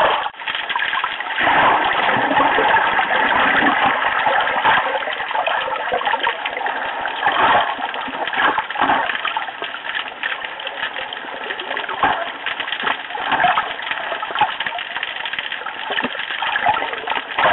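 Underwater water noise picked up by a submerged camera: a steady rush with many scattered clicks and crackles.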